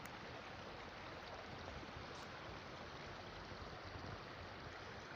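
Steady, faint rush of flowing river water.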